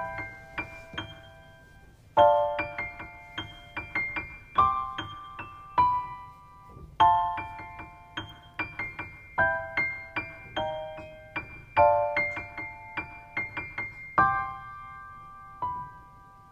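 Soft keyboard background music: a slow melody of single struck notes and chords in short phrases, each note ringing and fading before the next phrase begins.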